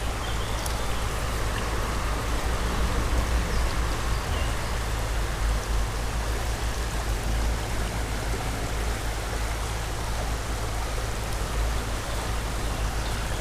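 Small creek water running steadily.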